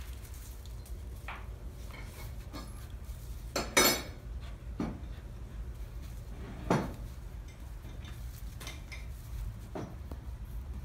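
A few scattered knocks and clinks from a Highland bull calf and a Great Pyrenees puppy playing among metal shop equipment, over a steady low hum. The loudest is a ringing metallic clink about four seconds in, and a duller knock follows a few seconds later.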